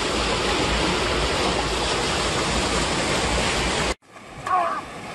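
Water pouring over a small stone weir: a loud, steady rush of white water close by. Near the end it cuts off abruptly to a much quieter river background with a brief voice.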